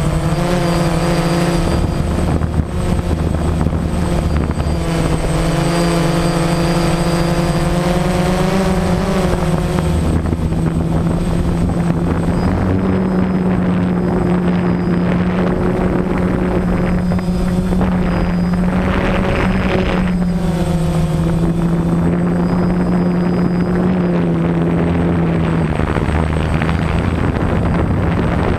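DJI Phantom quadcopter's electric motors and propellers buzzing loudly, heard close up through the camera mounted on the drone. The pitch wavers and steps up and down several times as the drone manoeuvres.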